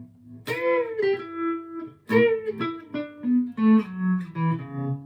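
Chapman electric guitar played through a Mooer Trelicopter tremolo pedal set to maximum depth and a fast speed: single picked notes, one bent about half a second in, then a run stepping down in pitch, their volume pulsing quickly.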